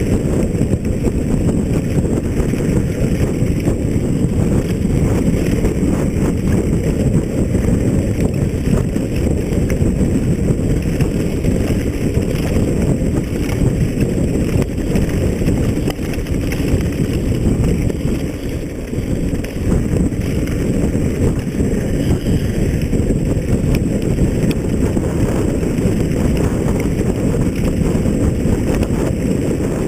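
Loud, steady wind buffeting on the microphone, a low rumbling rush that dips briefly about two-thirds of the way through.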